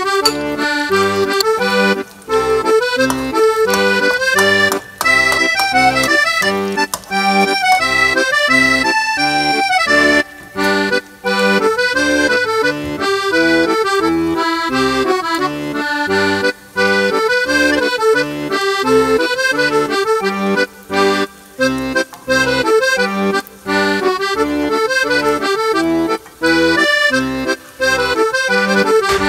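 Instrumental background music with a steady beat and a regular bass pulse.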